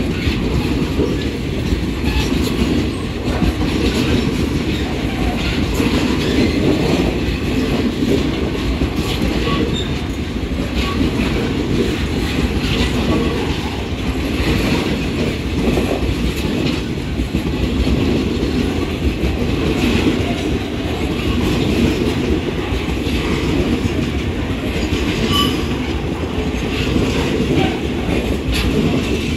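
Long freight train of tank cars rolling past on broad-gauge track: a steady rumble of wheels on rail with the clickety-clack of wheels crossing rail joints, and a few short squeals from the wheels now and then.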